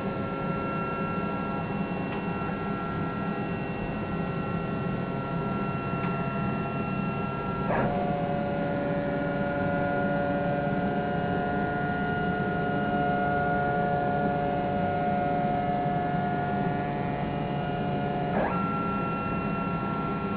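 MechMate CNC router's stepper motors driving the gantry around a square toolpath with no spindle running: a steady whine of several tones. The tones change abruptly twice, about eight and eighteen seconds in, as the machine turns a corner onto the next side of the square.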